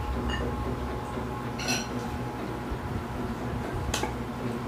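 Light clinks of dishes during a meal eaten by hand: a faint tick just after the start, a ringing clink about two seconds in, and a sharp click near the end, over a steady low hum.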